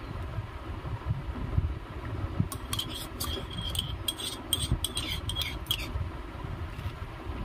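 A metal spoon stirring milk in a clay pot, then scraping and clinking against a small glass bowl as the whisked curd starter is scraped into the milk. A quick run of clinks and scrapes comes between about two and a half and six seconds in, over a steady low rumble.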